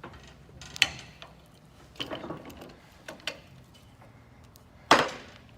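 Old steel wrench being handled and worked, giving a handful of separate metallic clicks and knocks, the loudest near the end.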